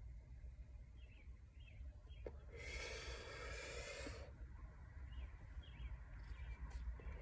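A person exhaling a lungful of cannabis vape vapour in one long breath of about a second and a half, near the middle.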